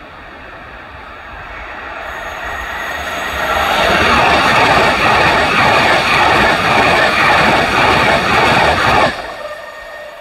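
LNER Hitachi Class 800 Azuma passenger train passing close by. Its rush builds over about four seconds to a loud, steady roar of wheels on rail with a regular beat of wheel clatter, then drops off sharply about nine seconds in as the last carriage goes by.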